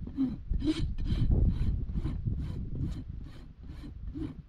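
Farrier's hoof rasp filing a horse's hoof wall: about ten even rasping strokes, a little over two a second.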